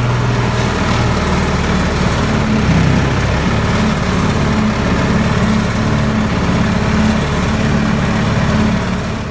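Small engine of a ride-on tractor train running steadily under way, its pitch shifting briefly about three seconds in.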